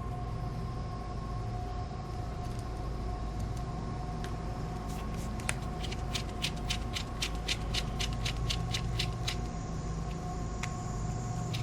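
Rapid run of small sharp clicks, about four a second, from about halfway through, from a small tool working on the phone's parts during screw fitting, over a steady electrical hum.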